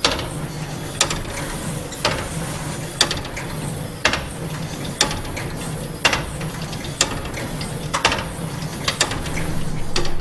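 The Corpus Clock's oversized grasshopper escapement working: the escape wheel stepping under the pallets (the chronophage's legs), with a sharp mechanical click about once a second and fainter clicks between, over a faint low hum.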